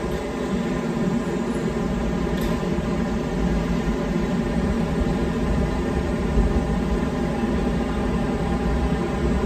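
Semboku Rapid Railway 9300 series electric train standing at the platform, its onboard equipment giving a steady hum over a low rumble.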